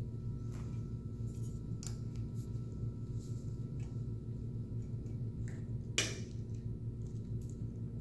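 Small clicks and clinks of metal mounting hardware and plastic parts handled by hand while a turn signal is fitted to a motorcycle license plate bracket, with one sharper click about six seconds in, over a steady low hum.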